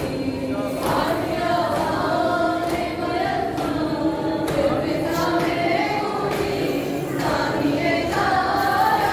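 A group of voices chanting a slow, melodic recitation in unison, rising and falling in pitch with short breaks between phrases.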